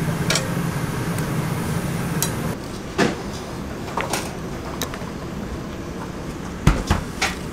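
Meat, shrimp and vegetables sizzling on a hot griddle over a steady low hum. This stops abruptly, and then metal tongs click and knock against a wooden cutting board a few times, with a cluster of knocks and a dull thud near the end.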